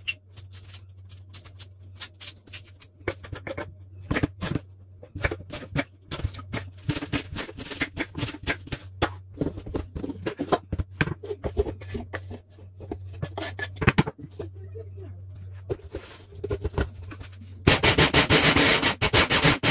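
Cabbage and onion pieces handled and dropped into a plastic chopper bowl: irregular light knocks and rustles. About two seconds before the end, a hand blender's chopper attachment starts chopping them, a loud, fast, even rattle.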